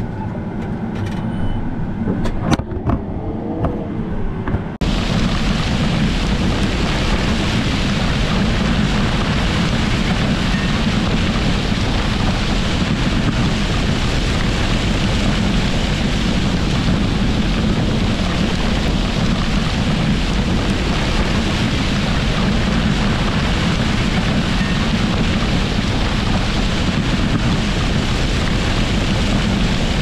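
Tractor cab hum with a few clicks, then, about five seconds in, an abrupt change to a loud steady rush from close beside a speed disc as its blades cut through and throw soil, with the tractor running.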